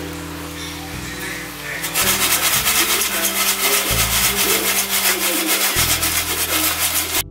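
Popped popcorn shaken and tossed in a metal air fryer basket to coat it with cheese powder: a dry rustling and scraping. It is softer at first, then grows louder and pulses at about four shakes a second from about two seconds in.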